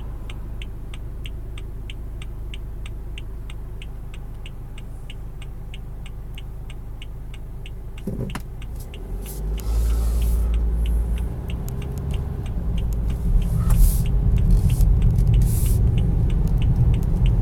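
Car engine idling at a stop, still running because the automatic stop-start has not shut it off, with a turn-signal relay ticking about three times a second. About nine seconds in, the engine note grows louder as the car pulls away.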